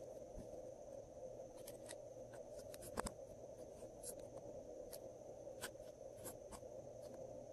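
Small spatula scraping and tapping pressed eyeshadow out of a makeup palette's pans: a scatter of faint short scratches and clicks, the loudest about three seconds in, over a steady hum.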